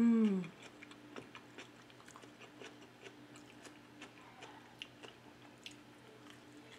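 A short hummed "mmm" that falls slightly in pitch, the loudest sound, then close-miked chewing and small wet mouth clicks: a person eating macaroni salad and then biting into a piece of chicken adobo.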